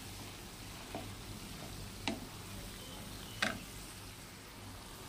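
Chopped banana flower frying in oil in a kadai with a faint, steady sizzle, while a wooden spatula stirs it, knocking against the pan three times about a second apart.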